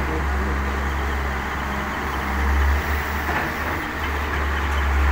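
Hitachi wheeled excavator's diesel engine running steadily under working load as it dumps a bucket into a trolley and swings back, with a deep, constant hum.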